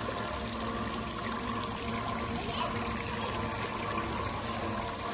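Small waterfall trickling and splashing steadily over rocks.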